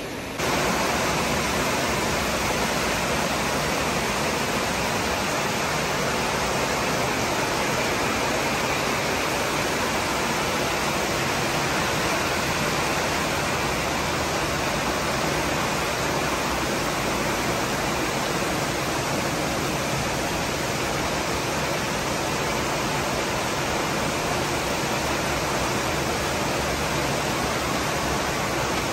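Heavy rain pouring down hard in a steady, unbroken hiss.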